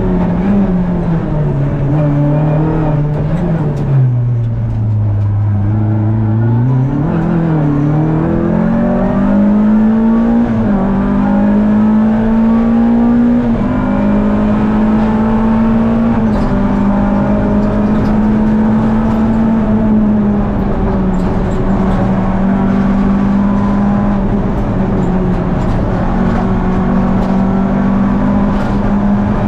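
Renault Clio N3 rally car's naturally aspirated 2.0-litre four-cylinder engine, heard from inside the cabin and driven hard. About four seconds in the revs drop low as the car brakes and slows for a bend. They climb back and then hold high, with short dips at each gear change.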